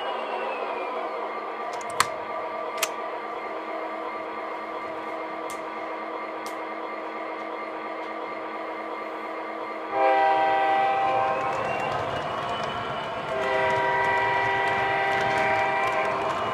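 O scale model diesel locomotive's onboard sound system playing a steady running diesel engine sound, with two sharp clicks a few seconds in. Two blasts of the locomotive's air horn, each about two and a half seconds long, follow about ten and thirteen seconds in.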